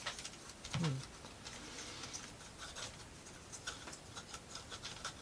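Small wooden parts of a laser-cut plywood model clicking, ticking and scraping as they are handled and fitted together, in scattered light taps.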